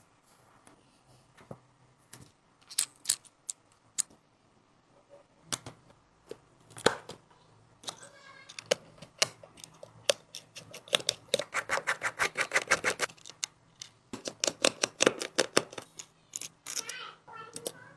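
Small repair tools clicking and tapping against a phone being taken apart, scattered single clicks at first, then two runs of rapid clicking at about ten a second in the second half.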